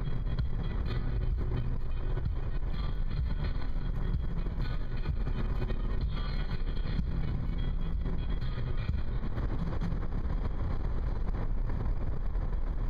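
Car driving steadily at road speed: an even, low rumble of engine and tyres on the road.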